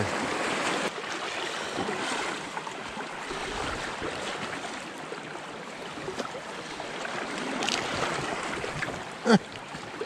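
Mountain creek running high and fast over rocks, a steady rushing hiss of water.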